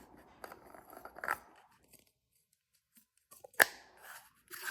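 Light clicks and scrapes of a battery cartridge being handled and slid into a flashlight handle, with one sharp click about three and a half seconds in.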